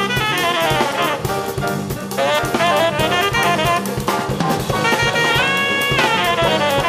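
Live jazz: tenor saxophone playing fast melodic runs over drum kit with cymbals, grand piano and bass. About five seconds in the saxophone slides up into one held note.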